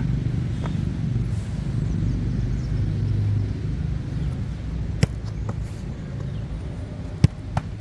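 Sharp thuds of a football being struck, one about five seconds in and two close together near the end, over a steady low rumble.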